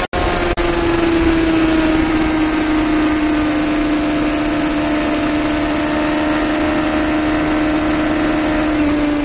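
2006 Suzuki GSX-R750's inline-four engine running hard at high revs near top speed, its note sinking slowly in pitch, under a heavy rush of wind.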